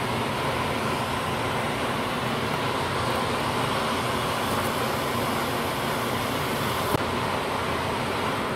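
Heat-shrink tunnel running: the steady rush and hum of its hot-air blowers with the roller conveyor turning, and a single sharp click about seven seconds in.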